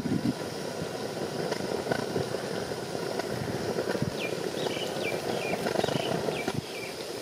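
Wind buffeting the microphone outdoors, with uneven low rumbles. About four seconds in, a small bird calls a quick run of about six short, falling chirps.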